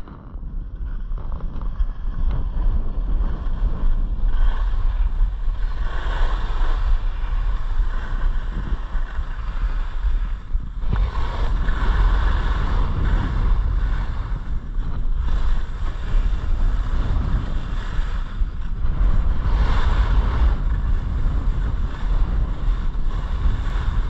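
Wind buffeting the microphone of a skier going fast downhill, a heavy rumble throughout, with the hiss of skis scraping over the snow swelling every few seconds.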